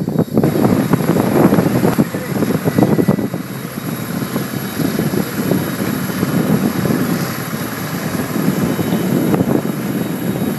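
Jet aircraft running close by: a loud, continuous rushing noise with a faint steady whine.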